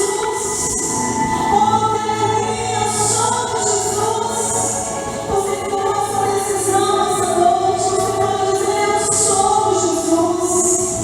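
Church choir singing a sustained song, the voices holding long notes.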